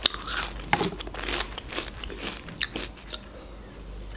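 Close-up crunchy chewing of potato chips: a run of sharp, crisp crunches for about three seconds, growing quieter near the end.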